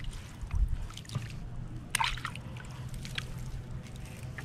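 Lake water sloshing and trickling, with light splashes and small knocks and a sharper splash or knock about two seconds in.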